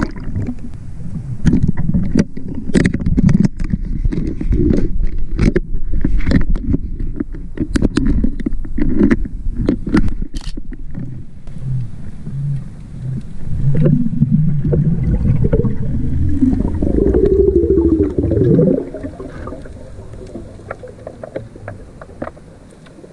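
Underwater sound picked up by a diving spearfisherman's camera: water moving past with many sharp clicks and knocks over a low rumble. In the middle, a low wavering hum rises and falls, then everything grows quieter about 19 seconds in.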